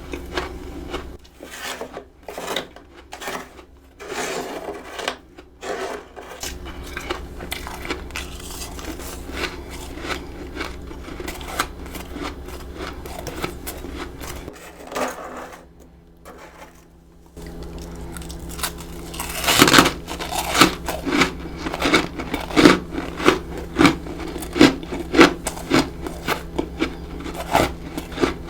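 Freezer frost being crunched and chewed close to the microphone, with scattered crisp crunches. In the last third the chewing turns steady, about two crunches a second, and this is the loudest part.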